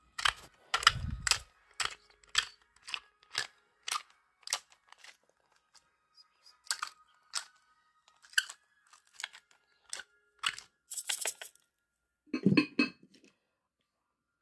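Hand pepper grinder crushing black peppercorns: a run of crisp crunching clicks, about two a second, growing sparser after about five seconds, with a duller knock about twelve seconds in.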